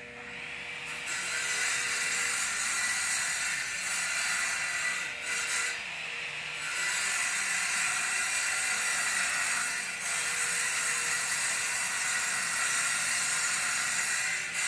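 A steady hiss of pressurised air or spray starting about a second in, broken off for about a second and a half around five seconds in and dipping briefly near ten seconds.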